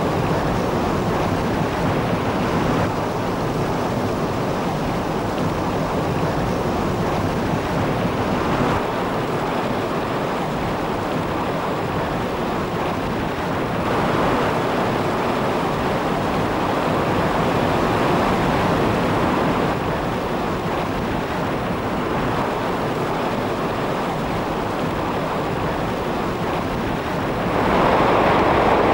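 Floodwater rushing, mixed with wind, as a steady even noise with no speech. It gets louder near the end.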